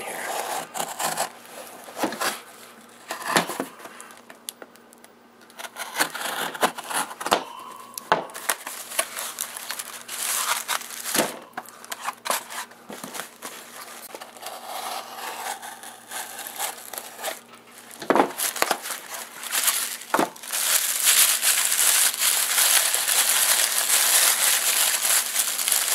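A mailed package being opened by hand: packaging tearing and crinkling, with scattered clicks and knocks. The rustling turns louder and continuous about three quarters of the way through.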